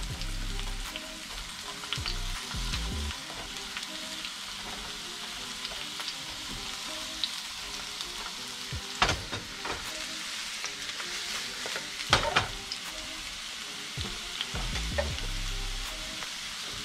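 Mushrooms searing in hot oil in a nonstick skillet: a steady sizzle. A few sharp clicks come as more mushrooms are set into the pan, the loudest about nine and twelve seconds in.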